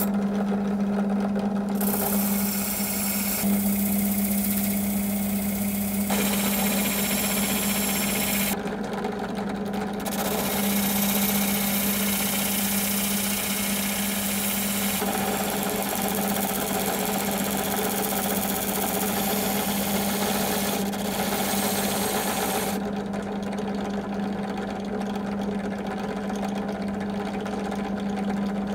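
Benchtop drill press motor running with a steady hum while a steel scissor blade is held against the spinning abrasive disc in its chuck, giving a hissing scrape. The scrape drops out twice, where the blade comes off the disc, and grows fainter over the last few seconds.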